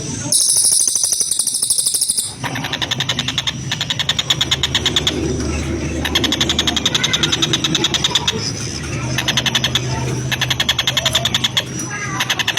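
Oriental dollarbird (tengkek buto) giving its harsh, rasping rattle calls in repeated series of rapid notes, each series a second or two long with short pauses between. Near the start a higher, thinner buzzing rattle runs for about two seconds.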